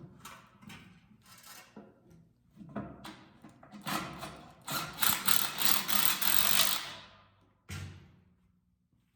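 Hand tools working on a transmission mount: scattered metal clicks and clanks, then a quick run of rapid mechanical clicking, like a ratchet wrench being worked, for about three seconds from around the middle. A single knock follows near the end.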